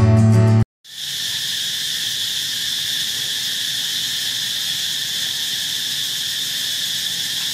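Acoustic guitar music stops just under a second in; after a short silence, a steady, high-pitched insect chorus drones without a break.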